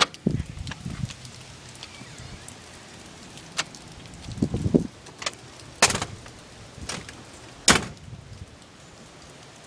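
A storm door's brass latch clicks open, then a handful of sharp knocks and thumps as the door is pushed open and someone steps out and down concrete steps.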